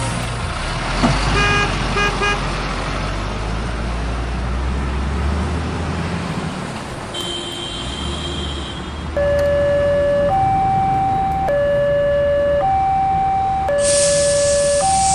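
Low rumbling noise, then from about nine seconds in an electronic two-tone siren stepping back and forth between a lower and a higher note about once a second, with a brief hiss over it near the end.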